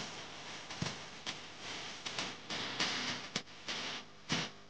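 A banana being sliced by hand with a small knife, the slices dropping onto a steel plate: scattered light clicks and taps, about five, at irregular intervals over low room noise.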